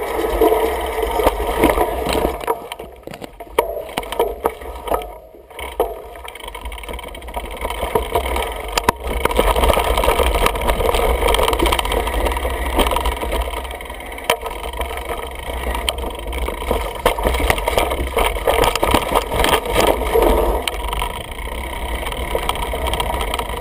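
Wind rumble on the microphone and a mountain bike rattling over a rough dirt trail at speed: tyres on dirt and loose parts clattering over ruts and roots, easing off briefly about three to five seconds in.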